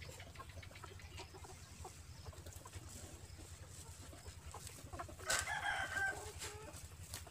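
An animal call lasting about a second, a little past halfway, over a steady low hum and faint scattered rustles and clicks.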